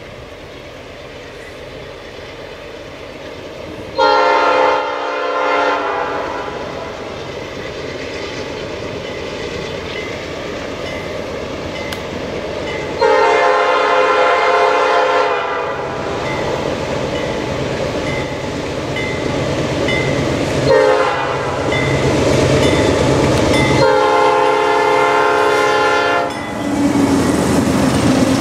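Lead BC Rail GE C40-8M locomotive's air horn sounding the grade-crossing signal of long, long, short, long, over the rumble of the approaching diesel freight train. The engine and wheel noise grow steadily louder as the lead units reach and pass the crossing near the end.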